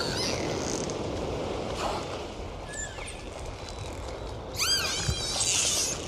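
Dolphins vocalising underwater over a steady hiss of water noise: a few short whistles at first, then about two-thirds of the way in a rapid run of arching, repeated whistles followed by a buzzy burst of pulses.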